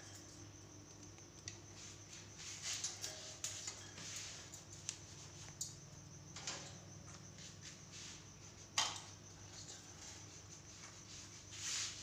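Ringneck parakeets eating peanuts at a wire cage: scattered small clicks, knocks and scrapes of beaks and feet, the loudest a sharp knock about nine seconds in, over a steady low hum.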